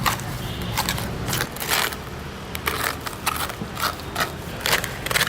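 Crispy lechon skin cracking and crunching as it is broken or bitten: sharp, irregular crunches, about two a second.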